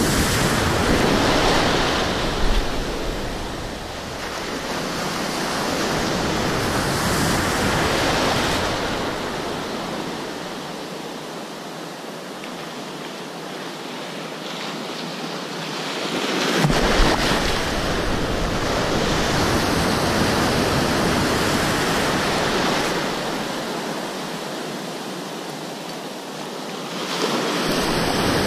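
Ocean surf breaking and washing through the shallows, swelling and fading in slow surges, with wind rumbling on the microphone during the louder surges.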